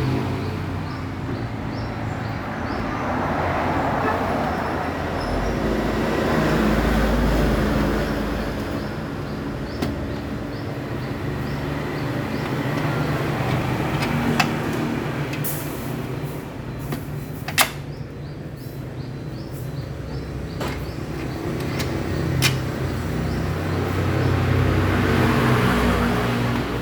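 Steady hum of motor vehicle engines that swells and fades several times, with a handful of sharp knocks, the loudest about two thirds of the way in.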